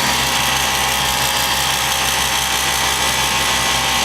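1989 Lennox heat pump outdoor unit running in cooling mode: a steady compressor hum under the loud rushing of the condenser fan.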